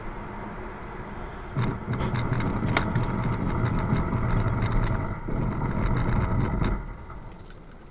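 Road, tyre and engine noise heard inside a moving car. It is a steady rumble that grows louder about a second and a half in, with scattered sharp ticks and knocks, then drops back near the end.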